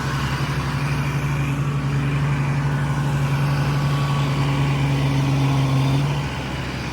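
Hitachi Zaxis excavator's diesel engine running steadily with a strong low hum, easing off about six seconds in as the pitch and level drop.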